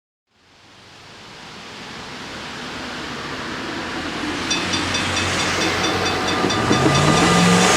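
A train approaching on the line, a rushing rail noise fading in and growing steadily louder. From about four and a half seconds in a rapid, high repeated ringing joins it, and near the end a low tone rises in pitch.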